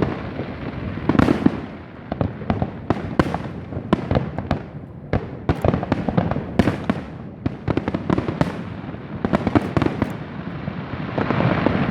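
Fireworks going off: a rapid, irregular string of sharp cracks and bangs over a continuous rumble of echoing bursts, building to a denser, louder barrage near the end.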